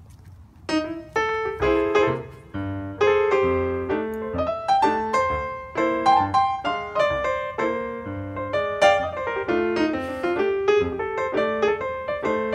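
Piano music: a lively tune of quick, separate notes that starts about a second in.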